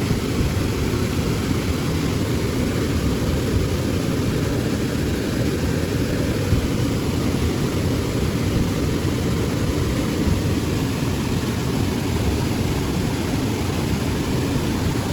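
Steady, unbroken low rumbling rush of noise, with no separate events standing out.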